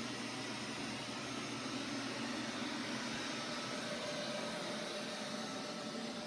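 Neato XV-21 robot vacuum running as it drives across carpet: a steady, even noise.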